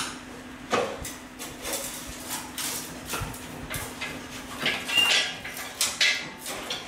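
Irregular metallic clinks, clicks and knocks of hands and parts working in a car's engine bay while the engine is being freed and lifted out on a hoist chain, over a faint steady hum. A brief high squeak about five seconds in.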